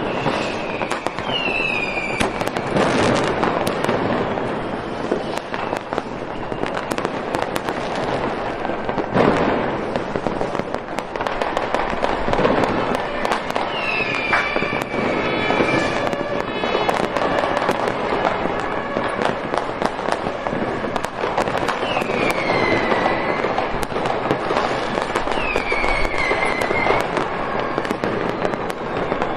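Fireworks going off in a dense, continuous barrage of cracks and bangs, with several short whistles that fall in pitch.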